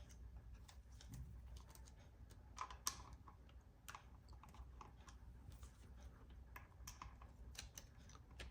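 Faint, irregular small clicks and taps from laptop parts being handled, with one sharper click about three seconds in.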